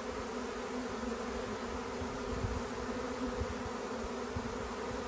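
Honeybee swarm humming steadily in a dense cloud around a hive as it moves in through a gap in the box, with an uneven low rumble underneath.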